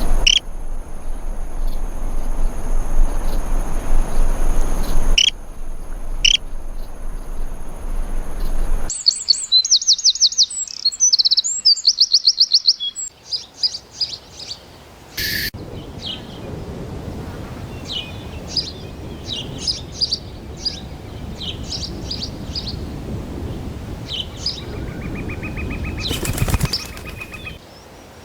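Calls of several different birds in turn: a fast, high trill of rapidly repeated notes, followed by scattered short high chirps.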